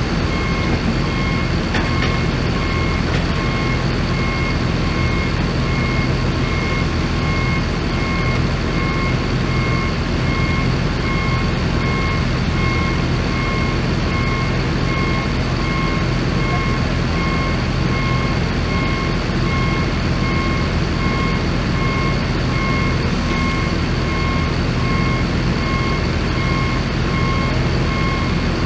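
Vehicle backup alarm beeping steadily, about two beeps a second, over a heavy engine running steadily.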